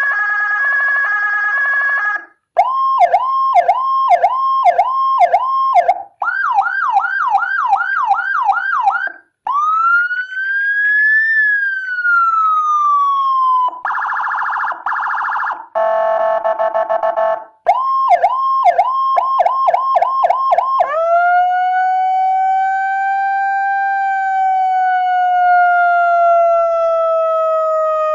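Electronic Whelen HHS-type siren module driven through a 200 W amplifier, stepping through its tones with short breaks between them: a held two-pitch tone, fast repeating yelps, a slow rising-and-falling wail, chopped pulsing tones, and more yelps. About three quarters of the way through it settles into a long wail that rises and then slowly falls.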